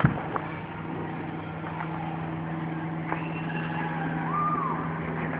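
Consumer fireworks going off: one loud bang right at the start, a few lighter pops after it, and a short whistle that rises and falls near the end, over a steady low hum.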